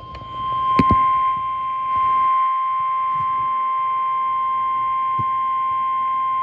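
NOAA Weather Radio's 1050 Hz warning alarm tone: one steady, unbroken tone, the signal that a warning message is about to be read. A couple of sharp clicks of radio static break over it about a second in.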